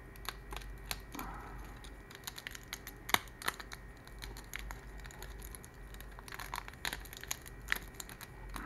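Thin 3D-printed plastic ooze shield being peeled and torn off a print by hand: irregular crinkling and crackling with small snaps, the sharpest snap about three seconds in.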